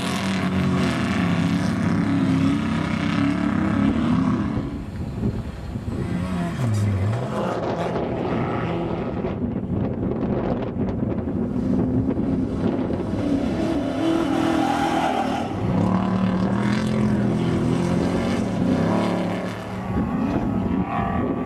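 Off-road desert race trucks' engines running hard and passing, the pitch falling and rising as they rev. About seven seconds in, one engine drops in pitch and climbs again, and the engine sound swells louder a couple of times later on.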